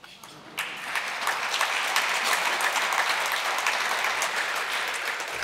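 Audience applauding: many hands clapping together, building up over the first second, then holding steady and easing off near the end.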